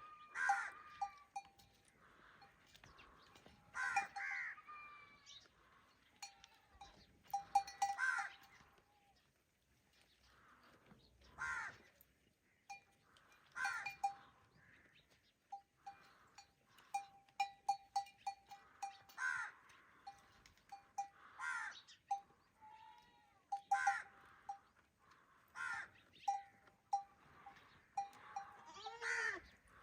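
Goats bleating every few seconds, over a bell clinking again and again at one pitch, often in quick runs.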